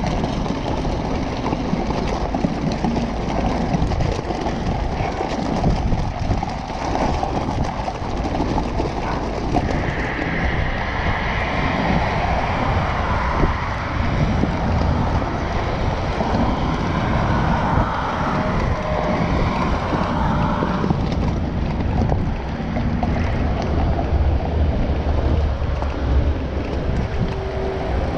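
Wind buffeting the microphone over a steady rumble of tyres rolling on gravel as a motorcycle is towed behind a car.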